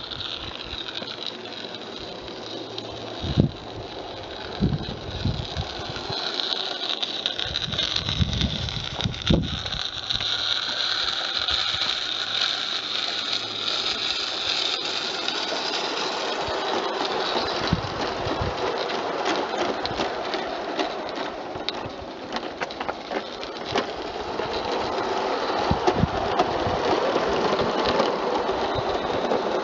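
Garden-scale live-steam locomotive and coaches running on the track: a steady hiss of steam with light clicking from the wheels and rails, and several low thumps in the first ten seconds.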